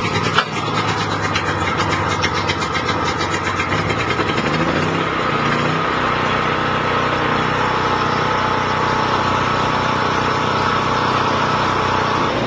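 DuroStar DS4000S portable generator's 7-horsepower air-cooled overhead-valve engine running steadily just after being started, with a short sharp knock about half a second in.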